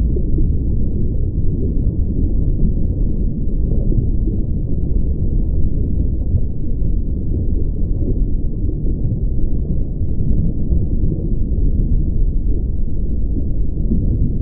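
A steady, loud, deep rumble with nothing high-pitched in it, unchanging throughout.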